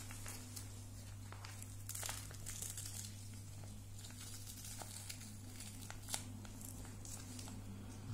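Plastic ostomy pouch crinkling as its adhesive flange is peeled off the skin by hand, faint and irregular, with a few sharp clicks.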